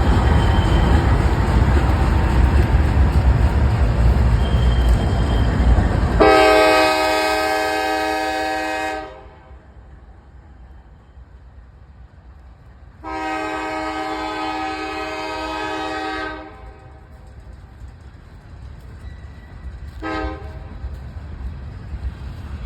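Freight train rumbling loudly past, then a diesel locomotive's multi-chime air horn sounding two long blasts and a short one, the opening of the long-long-short-long grade-crossing signal. The horn is clear and strong, a good horn on a locomotive otherwise in bad condition.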